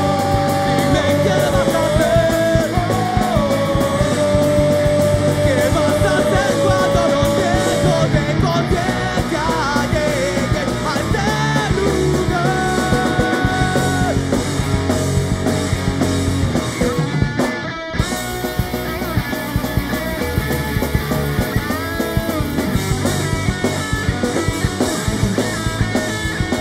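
Rock band playing live with electric guitar, bass guitar and drums. The band cuts out for a split second about two-thirds of the way through, then comes back in.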